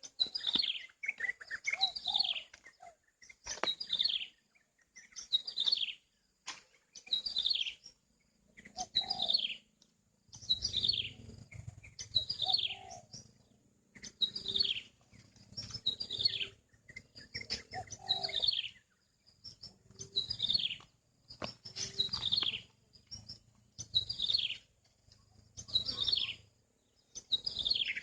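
A bird calling over and over: a short, high note that falls in pitch, repeated evenly about every two seconds, some calls joined by a lower note.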